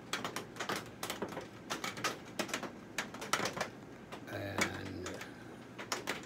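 Rain falling on a greenhouse roof, heard as many irregular sharp taps. A brief low hum sounds about two-thirds of the way through.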